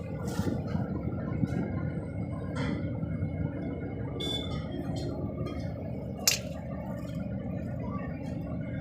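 Metal parts and tools clinking and tapping now and then over a steady low background rumble, as a pickup's wheel hub is taken apart and worked on.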